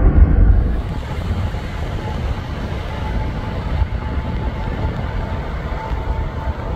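Loud jet engine rumble from a departing airliner climbing away, cut short within the first second. Then the steadier, quieter rumble of a Boeing 777F's twin GE90 turbofans at takeoff power during its takeoff roll, with a faint steady whine over it.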